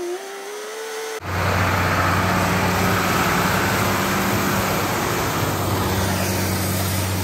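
Dump truck's diesel engine running with a steady low hum while gravel pours off the back of the raised bed in a continuous rushing hiss as the truck tailgates a layer of stone. The loud engine-and-gravel sound starts abruptly about a second in, after a quieter rising engine whine.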